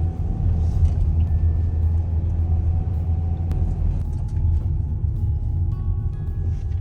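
Car interior road and engine rumble as the car drives along, a steady low drone. Faint background music comes in near the end.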